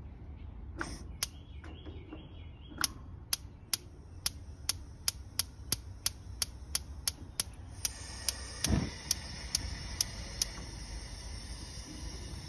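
Gas grill's spark igniter clicking about three times a second as the sear burner is started. About eight seconds in, a steady hiss of the burning infrared sear burner sets in, with a soft thump as it lights. The clicking stops a couple of seconds later and the hiss carries on.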